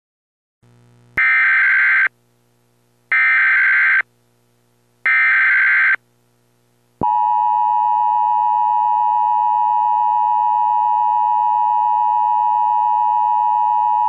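Emergency Alert System SAME header: three short, buzzy data bursts about two seconds apart. About seven seconds in, the EAS attention signal follows, a loud, steady two-tone alarm at 853 and 960 Hz, marking the start of a required monthly test.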